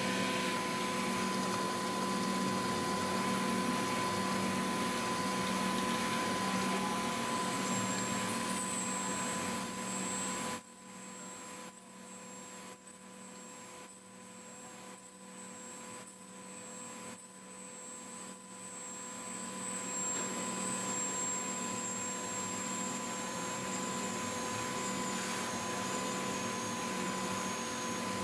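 Internal grinding machine running with coolant pouring onto the work: a steady mechanical noise with a constant hum and whine. For several seconds in the middle it drops back and returns in short pulses about once a second, then runs steady again.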